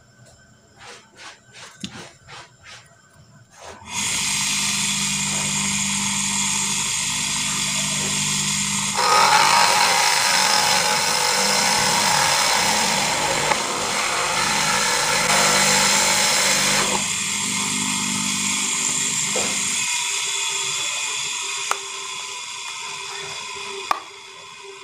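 A salvaged water-pump electric motor with a drill chuck on its shaft, used as a homemade bench drill, is switched on after a few light taps and runs steadily. It is louder and harsher for several seconds in the middle, then winds down with a slowly falling tone near the end.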